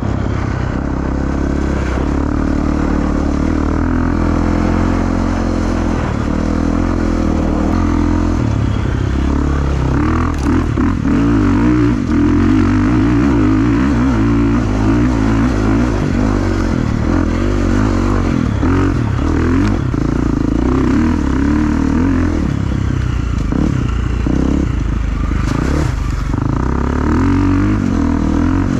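Enduro motorcycle engine running, fairly even for the first eight seconds, then its revs rising and falling as the bike is ridden.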